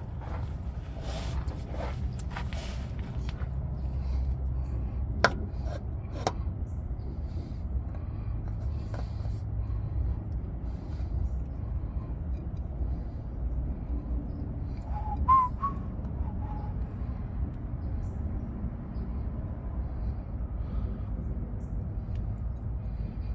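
Handling noise as an oil filter is worked onto its mount by hand: a few sharp clicks around five to six seconds in over a low steady rumble, and one short high chirp about fifteen seconds in.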